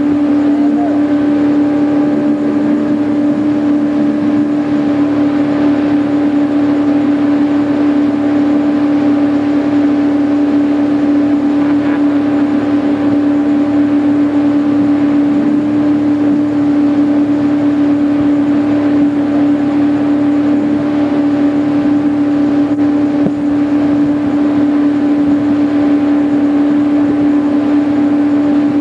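Motorboat engine running at a steady speed while pulling a towable tube, heard from on board: a loud, even drone with one strong steady pitch.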